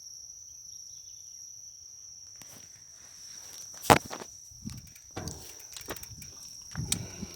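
A steady high-pitched insect drone from the forest. About two and a half seconds in, it is joined by irregular knocks and crunches, the loudest a sharp knock about four seconds in.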